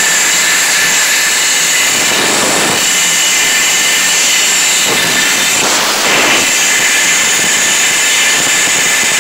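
Compressed air hissing loudly and steadily from an air chuck, blowing water-contaminated fuel out of a small Honda lawnmower engine's fuel tank. It swells a couple of times as the air stream shifts.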